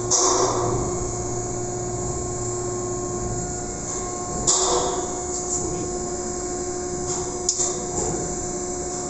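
Steady hum of running electrical machinery, with several steady tones over a low rumble. A few short clicks and knocks come about halfway through and again about three-quarters of the way in.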